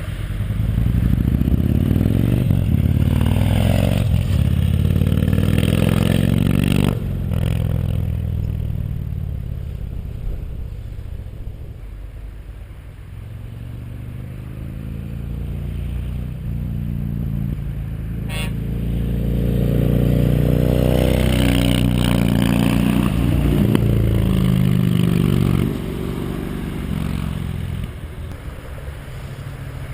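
Yamaha MT-01's 1670 cc V-twin through a full titanium Akrapovic exhaust with the EXUP valve and catalytic converters removed, accelerating hard with pitch climbing. About seven seconds in the throttle closes and the engine winds down for several seconds. It then builds again to a second hard pull that cuts off sharply a few seconds before the end.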